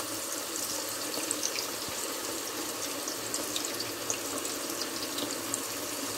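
Strips of spice-marinated veal frying in a deep pan of hot oil as fresh strips are lowered in: a steady sizzle with scattered small crackles and pops.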